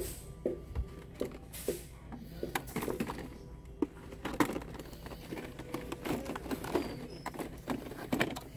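Blister-packed toy trucks being handled on store peg hooks: irregular plastic-and-cardboard clicks, taps and rustles over a steady low store hum.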